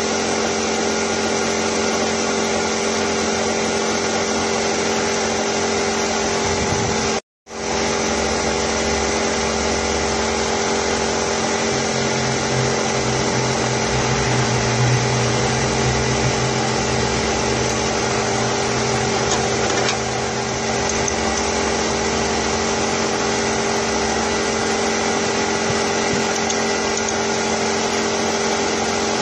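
Steady drone of a running machine: a hum of many even tones over a broad hiss. It cuts out completely for a moment about seven seconds in.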